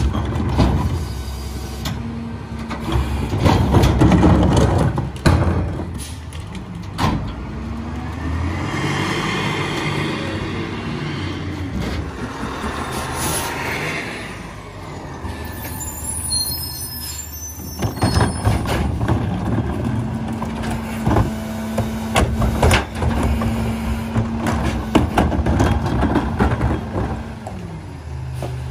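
Rear-load garbage truck with an EZ-Pack Goliath packer body on a Peterbilt 348 chassis, working: its diesel engine runs steadily, with repeated knocks and bangs, and the engine revs up and back down around the middle. A short hiss of air comes just after the rev.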